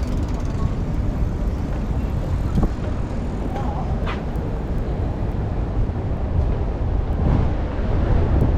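Outdoor city street ambience: a steady low rumble of traffic noise, with a brief higher sound about four seconds in.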